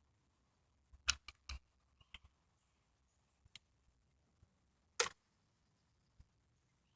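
A few faint clicks and taps from a plastic syringe and medication vial being handled, with one sharper click about five seconds in.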